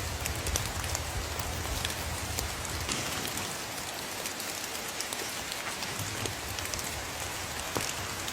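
Steady rain falling, with many separate drops striking close by as sharp little clicks over an even hiss. A low rumble underneath dies away about three seconds in.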